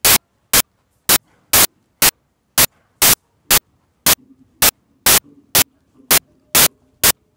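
Loud, short bursts of static hiss, roughly two a second, cut off sharply with near silence between them: a digital recording glitch.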